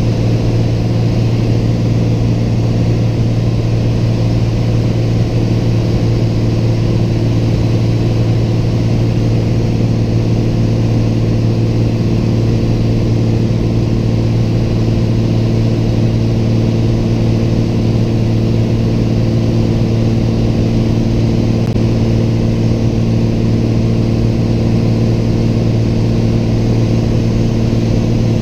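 Piper light aircraft's single piston engine and propeller running steadily in cruise, heard inside the cabin as an even drone that holds one pitch.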